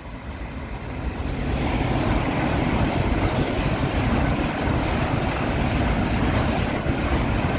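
High-speed electric train passing through the station at speed: a rumbling rush that builds over the first two seconds, then holds loud and steady.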